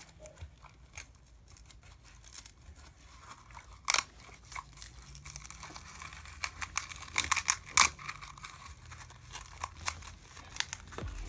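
Handling noise from a zippered fabric shroud being wrapped and fastened around a 1/16 RC truck's chassis: crinkling and rustling with scattered clicks, a sharp one about four seconds in and a flurry around seven to eight seconds.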